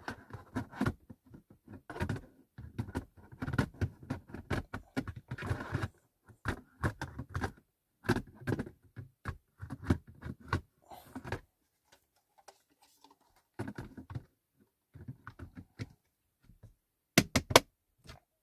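Mains-powered smoke alarm being handled and fitted back onto its mounting base: a busy run of plastic knocks, scrapes and clicks that thins out after about twelve seconds, then three sharp clicks near the end.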